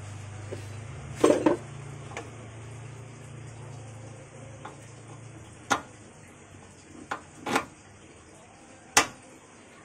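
Scattered metal clinks and knocks as a stabilizer link's ball-joint stud is worked into the bracket on a front suspension strut by hand. There are about half a dozen of them, a double knock early on and the sharpest one near the end, over a low hum that fades out about halfway through.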